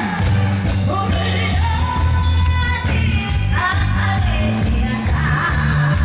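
A song over a backing track: a voice singing in gliding, held notes above a steady bass beat.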